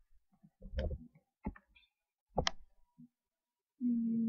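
A few scattered sharp clicks and soft knocks, with a short steady hum near the end.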